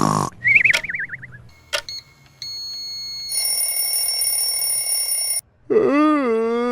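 Electronic alarm-like sounds: a short warbling whistle, then a few steady beeps, then a steady electronic ringing tone for about two seconds that cuts off suddenly. Near the end a long, wavering pitched call starts.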